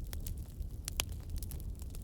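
Wood fire burning in a fireplace: a steady low rumble of flames with irregular sharp crackles and pops, one louder pop about a second in.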